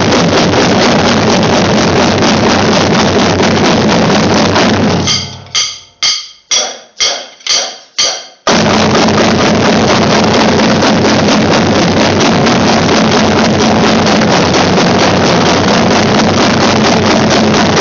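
A drumline plays a stroke warm-up exercise together as a dense run of rapid drum strokes. About five seconds in, it breaks into about six separate accented hits roughly half a second apart, each ringing out. Then the full dense playing resumes abruptly.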